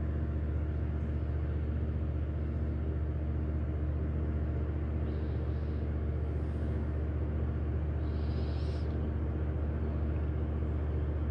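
Steady low machine drone with an unchanging pitch, and a brief faint hiss about eight seconds in.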